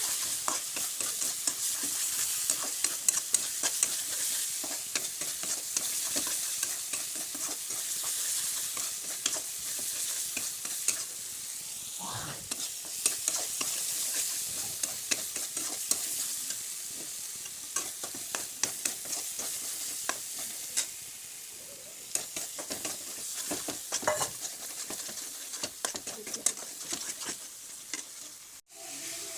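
Food frying in a pan with a steady sizzle while it is stirred, with frequent clicks and scrapes of the stirring utensil against the pan. The sound drops out for a moment near the end.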